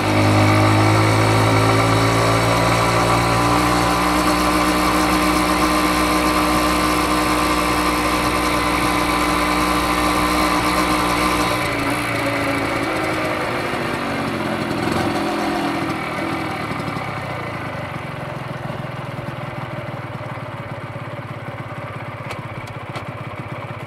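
Honda MB50's 49 cc two-stroke single-cylinder engine running under way with a steady exhaust note. About halfway through the note drops as the throttle is eased and the bike slows, settling to a lower, quieter, uneven running note.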